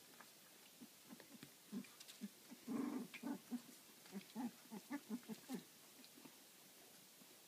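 Labradoodle puppies making a quick run of short, low vocal sounds, about a dozen over four seconds, with one longer sound near the middle.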